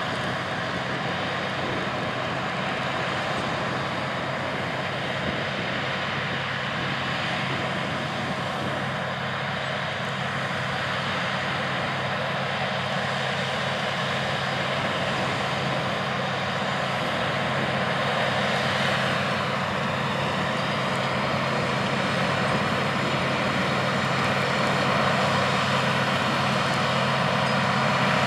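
A Case IH Steiger 620 Quadtrac's six-cylinder diesel engine pulling steadily under heavy load as it drags a nine-shank in-line ripper through hard, dry ground. It grows gradually louder in the second half as the tractor approaches.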